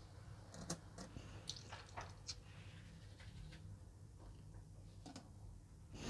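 Faint clicks and taps of 50-cent euro coins: coins clinking together in a palm and one being set down on a tabletop. There are a few scattered clicks in the first couple of seconds, a lull, then two more near the end.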